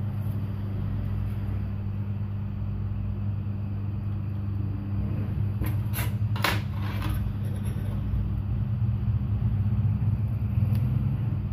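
A steady low machine hum, with a few short crisp crackles of cardboard being handled about six seconds in.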